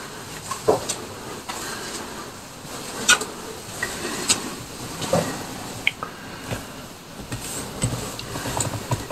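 Slow footsteps and scuffs on a hard floor, with scattered clicks and taps at uneven intervals over a steady background hiss.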